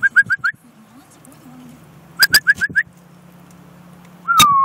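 Gulls calling: two quick runs of about five short rising notes each, then a long drawn-out call that begins near the end.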